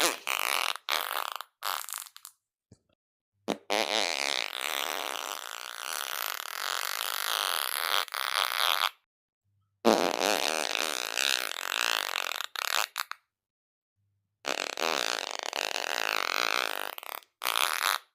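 A series of fart sounds: a few short ones, then three long, fluttering ones of several seconds each and a short one near the end, with dead silence between them.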